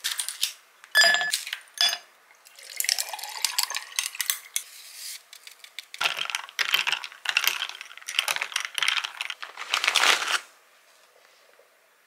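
Ice cubes dropping into a glass with two sharp, ringing clinks about a second in, then liquid poured over the ice with a rising pitch as the glass fills. After that comes a run of crackly rustling and clinking as the iced drink is stirred with a straw and a plastic snack bag is handled, stopping about two seconds before the end.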